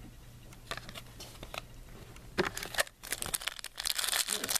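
A few light clicks of cards being handled, then from about three seconds in the foil wrapper of a Topps Platinum football card pack crinkling loudly as it is torn open.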